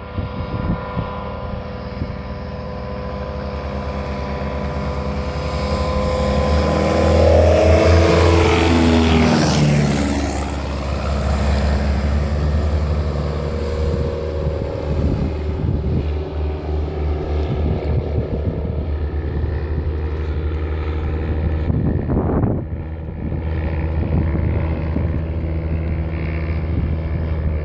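Piston engines and propellers of two light biplanes flying a low pass over the runway: the drone builds, is loudest about eight to ten seconds in, where its pitch drops steeply as they go by, then carries on steadily as they fly off.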